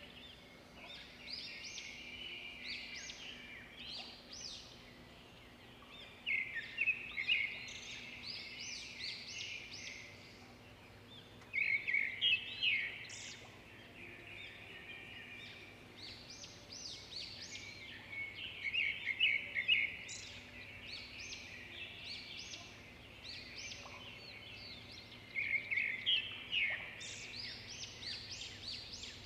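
Small birds chirping in quick trills, in bursts that return every six seconds or so, over a faint steady hum.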